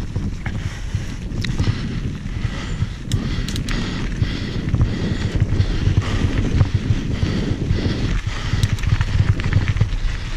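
Mountain bike descending fast on a dirt and loose-stone trail: knobby tyres rumbling and crunching over the ground, with wind buffeting the action-camera microphone. Sharp clicks stand out from the bike a few times.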